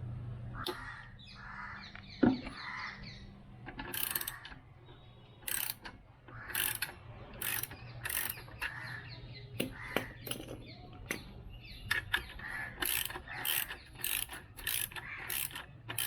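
Ratchet wrench with a 12 mm bit loosening a motorcycle exhaust clamp bolt: repeated ratcheting clicks in strokes, coming thick and fast from about four seconds in.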